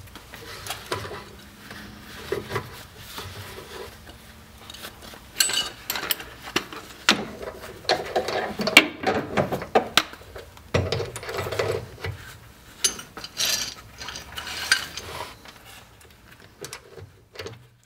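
Steel Watt's link suspension hardware being assembled by gloved hands under the car: quiet scraping of metal at first, then from about five seconds in many sharp clinks and rattles of nuts, washers and rod ends on a threaded rod.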